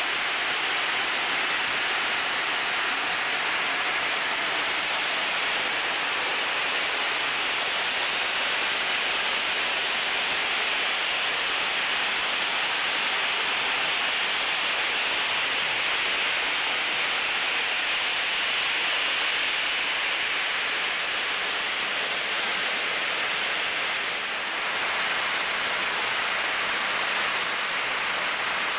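Thousands of glass marbles rumbling down the tracks of a large marble machine in a dense, steady rush like heavy rain, with a brief dip in level a few seconds before the end.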